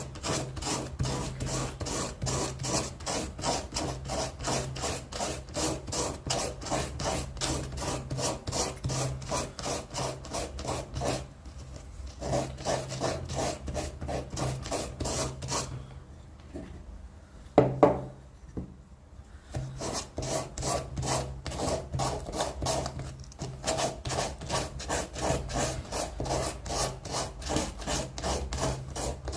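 A rasp being pushed across wood in quick, regular scraping strokes, about two to three a second, shaping a carved wooden spoon by hand. The strokes pause twice; during the longer pause, about two-thirds of the way in, there is one sharp knock.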